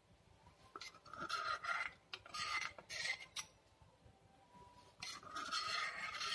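Steel spoon scraping the inside of a steel tempering ladle, scraping out the last of the tempering, in three bouts of scraping with a few sharp clicks, the longest near the end.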